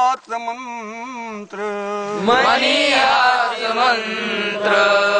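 A group of men singing a Marathi patriotic song together in a slow, chant-like unison. More voices join and the singing swells about two seconds in.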